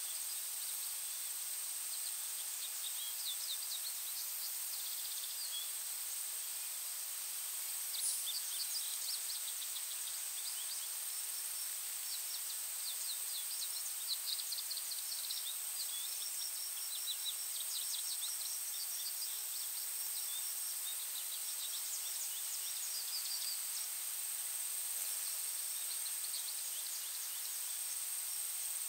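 Forest ambience: small birds singing in rapid trills of short high notes, over a steady high hiss and a constant thin high whine.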